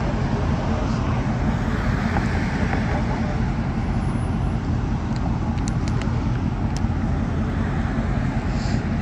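Steady low rumble of a car engine and road noise, even throughout, with a few faint clicks about halfway through.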